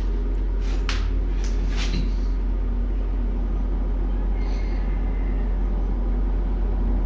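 Electric air blower of a coke forge running with a steady low hum while the fire is being brought up. A few sharp clicks come about one to two seconds in, and a faint bird chirp near the middle.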